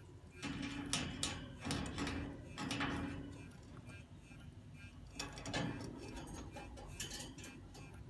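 Parrots eating: a scatter of sharp clicks and taps from beaks working at food and dish. A low humming tone comes and goes over the first few seconds.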